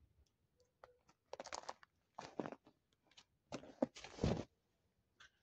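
Crunching, four times in a row, each about half a second long.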